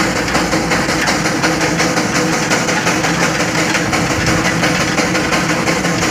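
1913 Geiser Peerless Model R steam traction engine under steam for the first time in about 17 years, running and driving along: a steady, dense mechanical noise with fast even beats.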